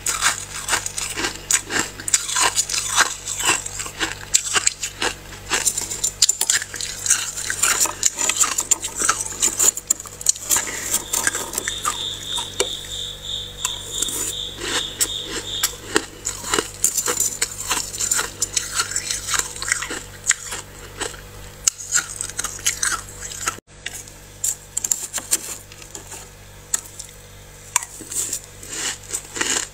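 Freezer frost being scraped and crunched: a fast, irregular run of gritty crunches and scratches. A steady high-pitched tone sounds for a few seconds near the middle.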